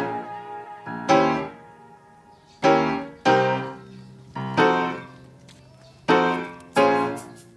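Background piano music: single chords struck about every second or so, each ringing out and fading before the next.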